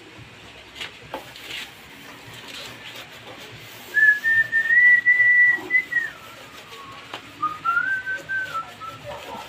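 A person whistling two drawn-out notes. The first is held high, rises a little and then slides down about two seconds in; the second is shorter and lower. A few faint clicks come before them.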